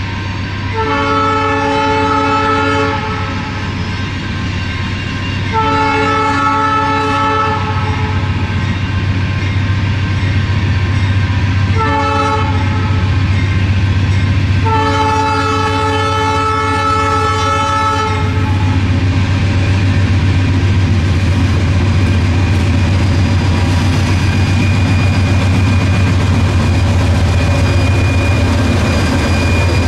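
Diesel freight locomotive horn sounding the grade-crossing signal, long, long, short, long, over the steady rumble of the approaching locomotives' diesel engines. The engines grow louder as the lead units pass, with rail clatter from the train.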